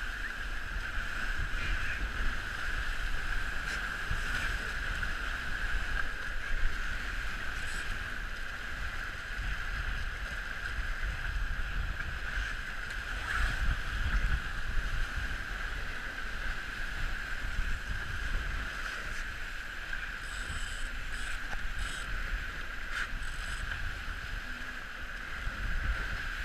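Wind and rushing water on a Dragonfly trimaran sailing fast in strong wind: a steady hiss of water and spray, with low wind rumble buffeting the microphone and occasional splashes.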